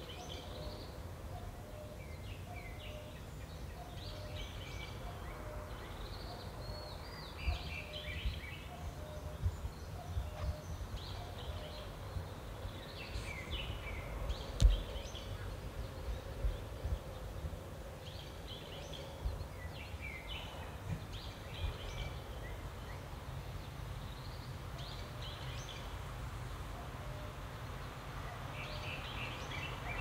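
Small songbirds chirping and calling in short bouts of quick, falling notes, over a steady low wind rumble on the microphone. There are a few dull thumps, the loudest about halfway through.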